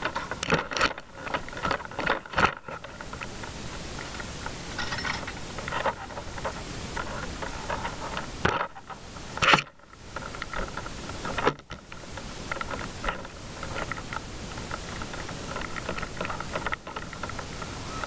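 Fire engine running with a steady high whine, under the knocks and rustles of a firefighter pulling supply hose off the hose bed; several sharp knocks come in the first couple of seconds and again about halfway through.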